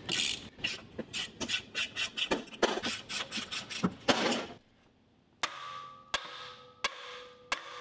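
Socket ratchet clicking in quick strokes as a motor mounting bolt is worked loose, then, after a short pause, four hammer blows on the end of a seized brushed DC motor, evenly spaced, each leaving a metallic ring.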